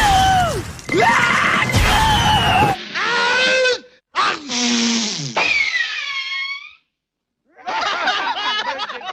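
Cartoon characters screaming and yelling over a crashing, shattering noise for the first three seconds. Then comes one long scream falling in pitch that fades out, and after a short silence, more cartoon voices.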